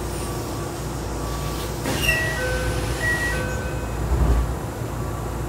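Kintetsu 9820 series train at a station stop, with the car's steady low running hum. About two seconds in, a sudden release sound is followed by a door chime of alternating high and low notes as the doors open. A low thud comes just after four seconds.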